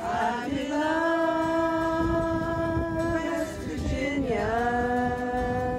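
Small acoustic folk group playing live: a singer holds a long note, slides down about four seconds in and holds a lower one, over fiddle and strummed acoustic guitar.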